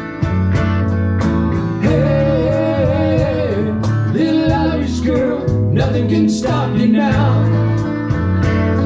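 Live band playing a song: electric guitar over low bass notes and a steady beat of about four ticks a second, with a wavering melody line through the middle.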